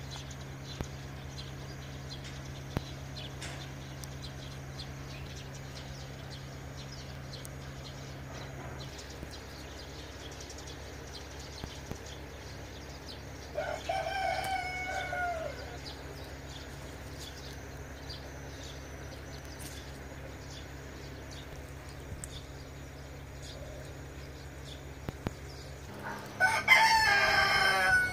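Rooster crowing twice: once about halfway through, and again, louder, near the end, over a steady low hum.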